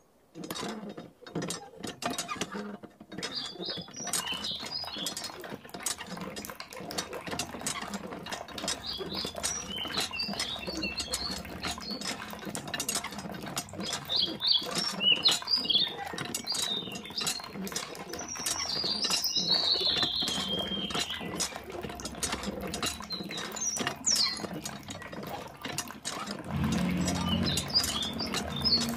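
Miniature hand pump being worked: quick small clicks and rattles from the handle, with water running from the spout and splashing into a small pool. High chirps sound faintly in the background.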